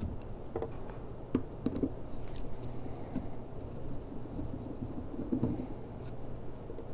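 Phillips screwdriver backing out the small screws that hold the top on a 20 hp Kawasaki carburetor: light scratching and scattered small clicks of the bit in the screw heads and of metal parts being handled.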